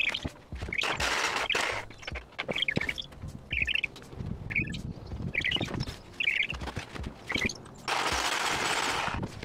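Cordless reciprocating saw cutting through a steel exhaust pipe under a car, run in several short, choppy bursts and then one longer harsh cut lasting about a second and a half near the end.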